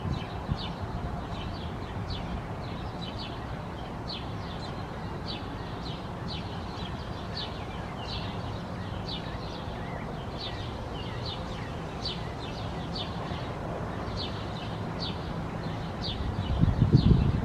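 A bird's short high chirps, repeated about twice a second, over a steady low rumble; the rumble swells louder near the end.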